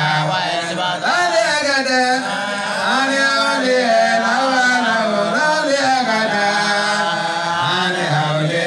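A man's voice chanting in long, drawn-out melodic phrases into a microphone, in the manner of Islamic devotional chanting in praise of the Prophet.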